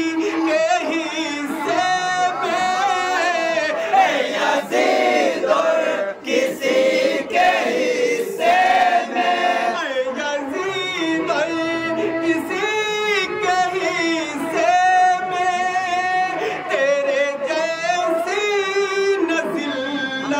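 Male voices singing an Urdu Muharram manqabat, a devotional poem for Husain, with a group of voices joining in. The singing moves through long held notes.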